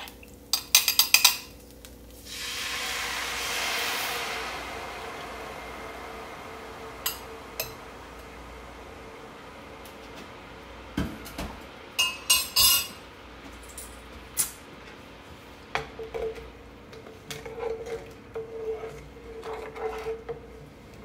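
A spoon clinks against a glass measuring cup, then a coconut-milk sauce is poured into a hot nonstick skillet and hisses loudly for a couple of seconds, deglazing the browned fish bits stuck to the pan. After that comes a faint steady simmering hiss with occasional clinks of a utensil on the pan, and a wooden spoon scraping the pan bottom near the end.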